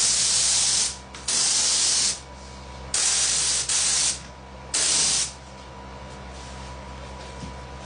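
HVLP spray gun hissing in five short bursts as the trigger is pulled and released while spraying satin lacquer. The bursts stop about five seconds in, leaving a low steady hum underneath.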